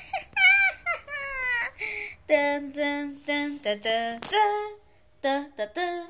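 A high-pitched voice making a string of short, squeaky, wordless squeals and sung notes, like cartoon character voices, with a brief pause near the end.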